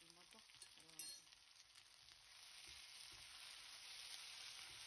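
Sliced onions sizzling softly in oil in a frying pan, the sizzle slowly growing louder, as they are stirred with a wooden spatula. There is a single sharp click about a second in.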